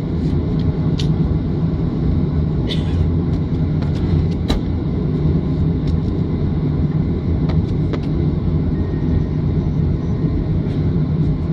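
Cabin noise of a Boeing 737-500 moving along the ground: a steady low rumble from its CFM56-3 engines at low power and the wheels rolling, with a couple of light clicks.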